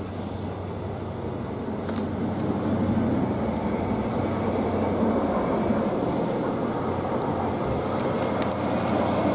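Virgin Trains East Coast HST's Mark 3 coaches passing on the main line: a steady rumble of wheels on rail that grows louder about two seconds in, with a few sharp ticks near the end.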